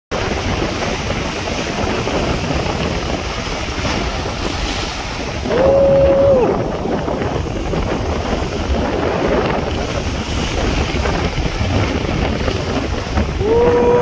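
Rough sea surf breaking and churning against rocks, with wind buffeting the microphone. A short held tone sounds about six seconds in and again near the end.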